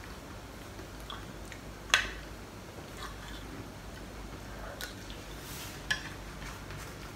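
A metal spoon clinking against a plate a few times, the sharpest click about two seconds in and another near six seconds, with faint chewing between.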